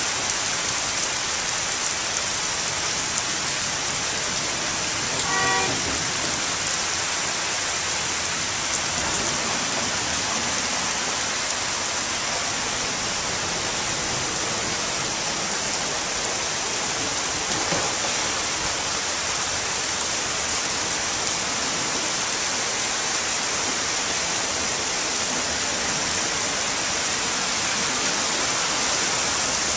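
Heavy monsoon rain and a foot-deep flood of water rushing down a street make a steady hiss, with a brief car-horn toot about five seconds in.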